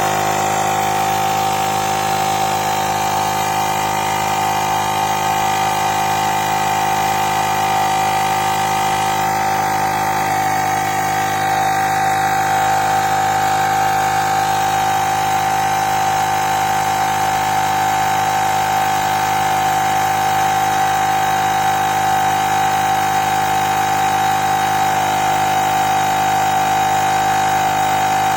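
Portable battery-powered tyre inflator running, its small piston compressor pumping up a tyre toward the preset target pressure, at which it stops by itself. A steady, even drone with a strong mid-pitched hum.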